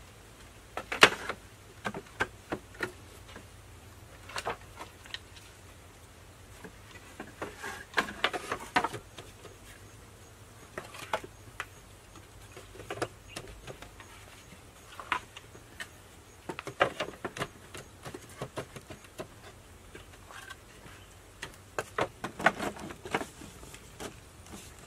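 Bamboo poles knocking and clattering as they are handled, tapped and stacked into place, in irregular single knocks and short clusters of several.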